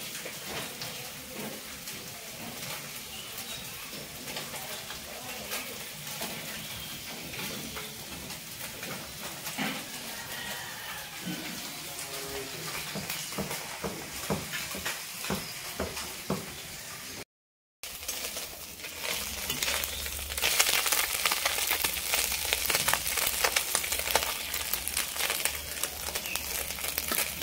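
Small fish frying in hot mustard oil: a steady sizzle full of crackling pops. After a brief break about two-thirds through, the sizzle comes back louder and denser.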